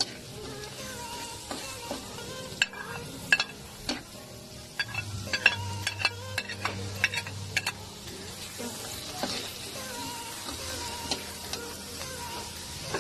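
Onions and garlic sizzling in hot oil in a metal wok while a metal spatula stirs, scraping and clicking against the pan, most often in the middle few seconds. Chopped tomatoes are tipped in partway through and stirred into the frying oil.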